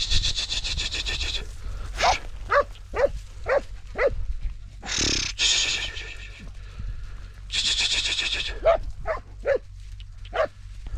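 Hunting hound barking in short yelps, three to five in quick succession, twice, as it searches for a hare's scent. Bursts of rustling noise near the start, about halfway and about two thirds of the way through.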